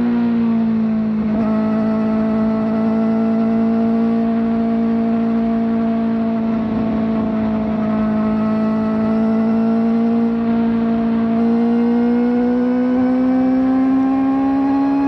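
Kawasaki ZX-4RR's 399 cc inline-four engine running at high rpm through an aftermarket slip-on exhaust. The pitch eases slightly in the first second, holds steady for about ten seconds, then climbs as the engine revs higher near the end.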